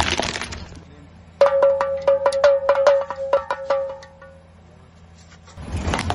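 Plastic toy pellet drum twirled by hand: the beads on its strings strike the drumhead in quick clicks, about five or six a second, over a ringing tone, for a couple of seconds before the ring fades. At the very start the crunch of a plastic toy truck crushed under a car tyre dies away.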